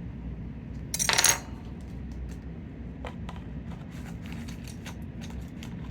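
A short jangling clatter of small hard pieces about a second in, from unboxing the keyboard's contents, followed by scattered light clicks and taps from handling.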